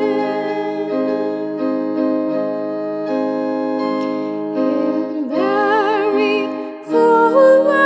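Music: held electronic keyboard chords in an organ-like tone, moving from chord to chord at an even pace. About five seconds in, a higher held melody line with a wide vibrato joins them and grows louder.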